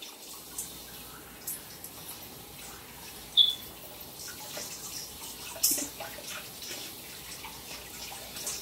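Kitchen faucet running into the sink as raw Cornish hens are rinsed under it by hand, water splashing off the birds. A brief high squeak comes about three and a half seconds in, and a sharp clack a little before six seconds.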